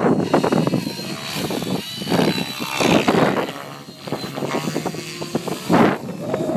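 Synergy E5 Stretch electric RC helicopter on a 12-cell pack, its 695 mm rotor blades whooshing in loud surges as it flies aerobatic passes. A thin whine rises and falls in pitch through the swoops.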